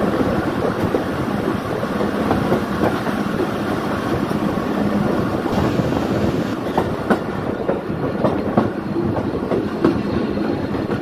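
Passenger train running, heard from an open coach window right beside the wheels: a steady rumble of steel wheels on the rails with irregular sharp clicks as the wheels pass over rail joints.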